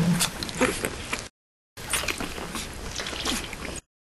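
A one-week-old Great Pyrenees puppy suckling at a baby-bottle nipple: small wet sucking and smacking clicks. The sound cuts out to complete silence twice.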